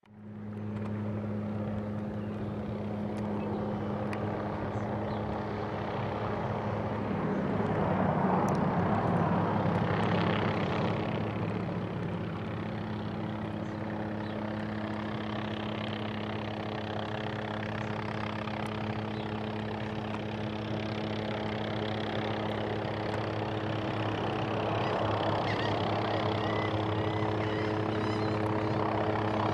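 Light helicopter of the Hughes/MD 500 type flying low overhead, its rotor giving a steady low drone. It grows louder as the helicopter comes closer, a little after the start and again near the end.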